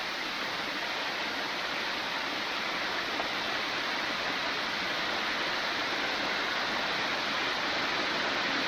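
Waterfall: a steady rush of falling water, growing slightly louder over the few seconds.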